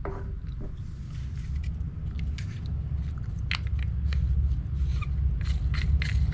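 Scattered light clicks and taps of small parts being handled and fitted, over a steady low rumble that grows slightly louder.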